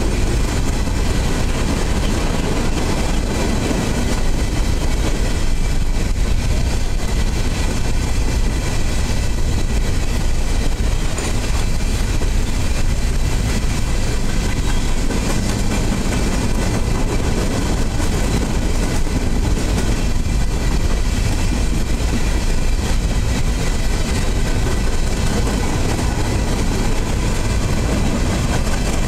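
Covered hopper cars of a freight train rolling past close by: a steady rumble of steel wheels on rail.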